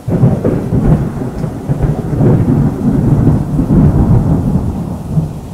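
Thunder rumbling with rain, a dense low rumble that cuts in suddenly and eases slightly near the end.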